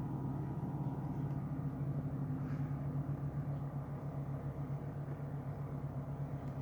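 A steady low rumbling hum with a slightly fluttering loudness.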